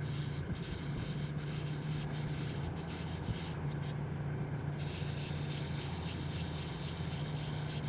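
Fishing reel being cranked to reel in the line, a steady scratchy whirring, over the steady low hum of the boat's small motor.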